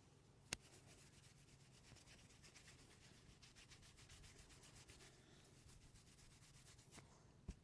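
Faint rubbing of a masseur's hands over skin and hair, with one sharp click about half a second in.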